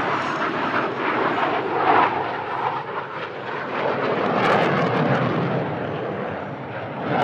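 Jet noise from a pair of fighter jets flying a display overhead, a loud rushing sound that swells and fades as they pass, strongest about two seconds in and again around the middle.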